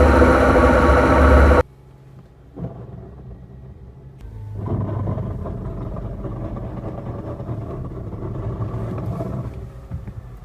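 Car drivetrain running with a manual gearbox that has a locally damaged gear, one or two broken teeth, the kind of damage that gives a knock at regular intervals. A loud steady running sound cuts off suddenly about a second and a half in. A quieter running sound follows and grows louder about four and a half seconds in.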